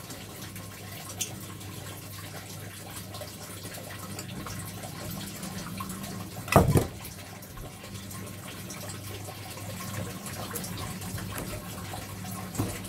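A steady hiss like running water with a low hum underneath, broken about six and a half seconds in by one loud double knock, with a couple of lighter clicks elsewhere.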